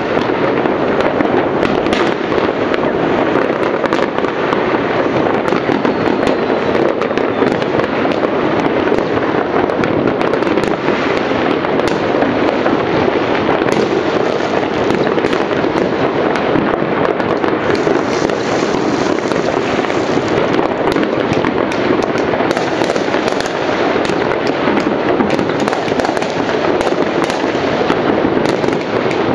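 Many fireworks and firecrackers going off at once all around, their bangs and crackles running together into a loud, unbroken noise with countless sharp pops on top.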